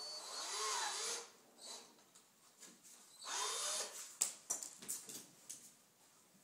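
Power screwdriver running in two short spells, its pitch rising and falling as it backs out an outlet's terminal screws, followed by several light clicks of the screw and outlet being handled.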